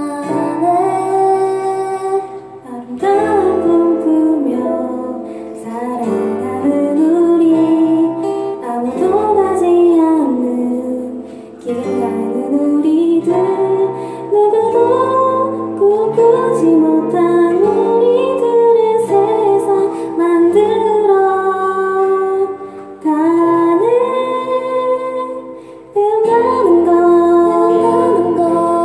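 A student band performing a song live: a woman sings the melody in phrases over guitar accompaniment and a steady bass line.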